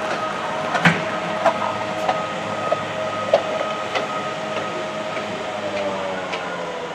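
A greyhound track's electric hare (lure) running along its rail. It makes a steady mechanical whine with a train-like rattle of sharp clicks in the first few seconds, and the pitch drops slightly near the end as it slows.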